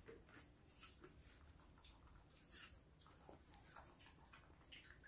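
Near silence: room tone with faint, scattered small clicks and rustles, about two a second.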